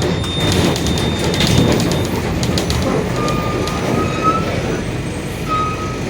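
Mercedes-Benz OF-1721 Bluetec 5 city bus under way: steady diesel and drivetrain rumble with clicking rattles, and a high whine that comes and goes twice in the second half. Its differential is growling.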